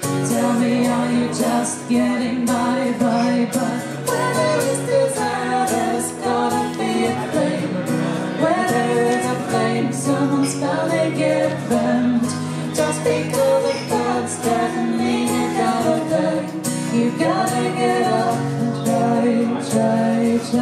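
Live song: a woman and a man singing together over a strummed guitar.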